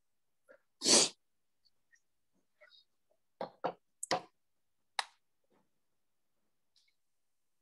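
A brief loud burst of noise about a second in, then five short knocks or clicks in quick succession a couple of seconds later.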